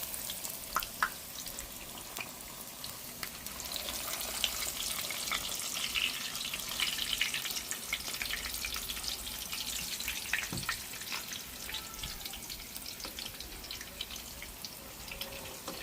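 Hot cooking oil sizzling and crackling in an electric frying pan as food fries, with a constant patter of small pops. It swells louder for several seconds in the middle, then eases back.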